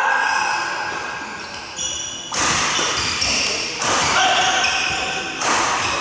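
Two sharp badminton racket hits on a shuttlecock, about three seconds apart, ringing in a large hall, with athletic shoes squeaking on the wooden court floor in between.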